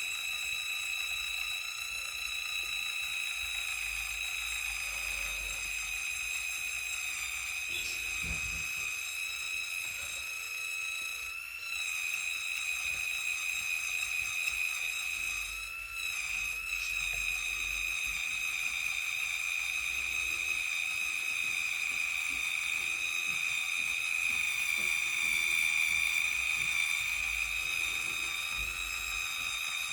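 Small handheld electric tool's motor running with a steady high-pitched whine. It dips briefly twice, as if under load, while it cleans leftover battery adhesive from the phone's frame.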